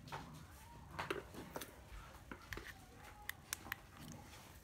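Faint, scattered clicks and light taps of a small 12 V cordless cutter being handled, with no motor running.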